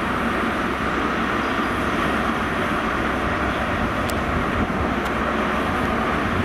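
GWR Class 43 HST power car's MTU diesel engine running with a steady drone as the train moves through the station.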